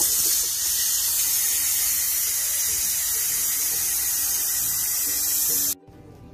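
Ninja Foodi pressure cooker's pressure release valve venting steam in a loud, steady hiss as the pressure is let out after cooking rice. It stops abruptly near the end.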